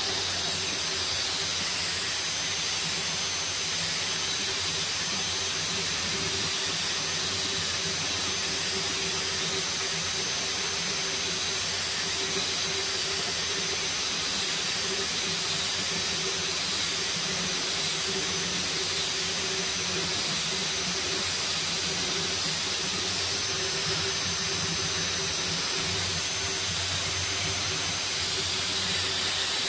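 A 125 mm random orbital sander with 60-grit paper runs steadily on a lacquered veneer tabletop, cutting through the old coating to bare wood. It makes a steady hum with a thin high whine over a hiss.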